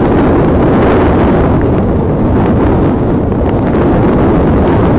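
Strong tropical-storm wind from Hurricane Hermine buffeting the microphone: a loud, steady, low rumble, with wind-driven rain.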